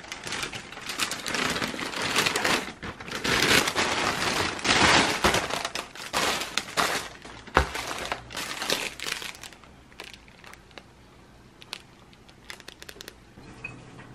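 Clear plastic bread bags crinkling and rustling as bagged loaves and buns are handled, in a run of bursts that dies down about ten seconds in, leaving a few faint clicks.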